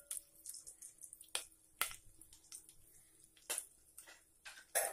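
Cashews and other dry fruits frying in hot ghee in a pot, giving scattered soft pops and crackles, with a louder click near the end.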